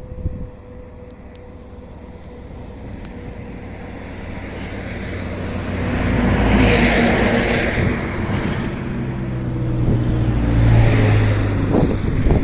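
A train hauled by an ONCF E-1400 electric locomotive passing close by. A rushing noise of wheels on rail rises to its loudest about seven seconds in and peaks again near the end, over a steady low hum.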